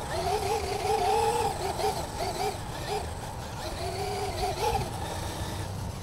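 Traxxas UDR RC truck's brushless electric drivetrain whining as it is driven over bumpy grass, its pitch wavering quickly up and down. The whine drops away briefly about halfway through and then comes back, over a low wind rumble.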